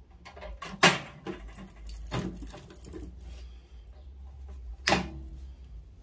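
Wire cutters snipping through the copper wires inside a microwave oven: a few sharp clicks, the loudest about a second in and another near the end, with light metallic rattling of the wires between cuts.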